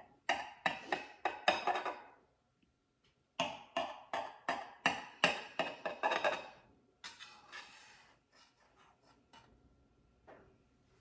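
Knife sawing through a rhubarb upside-down cake and scraping on the plate beneath it: a run of short, sharp strokes, a few at first, then a quicker series, thinning out near the end.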